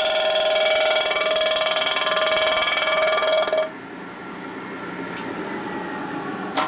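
Machine tool cutting the face of a chromed Harley primary cover with a loud, steady, slightly pulsing squeal. The squeal stops abruptly about three and a half seconds in, leaving quieter machine noise and a sharp click near the end.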